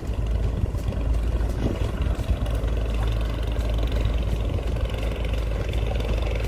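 A river boat's engine running steadily with a deep, low drone.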